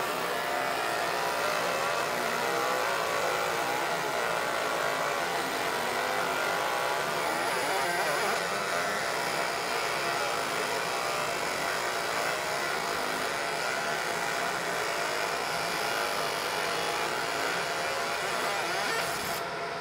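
A 50 W fiber laser engraver is marking text into a black-coated aluminum card, making a steady buzzing, hissing sound whose pitch wavers as the beam scans. It stops shortly before the end as the engraving finishes.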